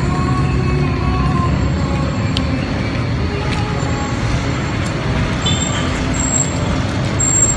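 Steady street traffic noise, with motorcycles passing on the road.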